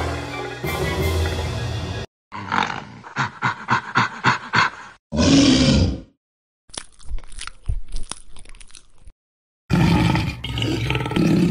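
Sound effects cut together in segments. Music comes first, then stretches of sharp crunching and clicking like an animal chewing a carcass, with a short loud roar about five seconds in. Each segment breaks off abruptly into silence.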